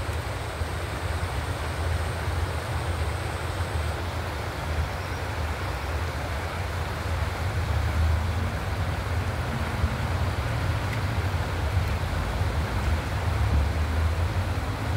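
Steady rush of a shallow river running over rocks, under a heavy low rumble.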